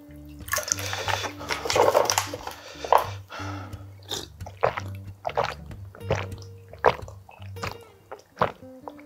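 Liquid poured into a glass, then gulped down in a run of separate swallows starting about four seconds in, over steady background music.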